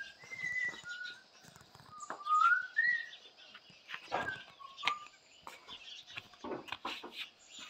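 Beagle puppy whimpering in a few short, high-pitched rising whines spread over several seconds, with the scuff of footsteps in sandals on concrete.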